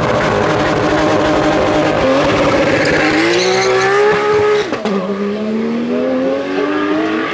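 Racing car launching hard off the start line and accelerating away, the engine pitch climbing steadily, dropping sharply at an upshift about four and a half seconds in, then climbing again into the next gear.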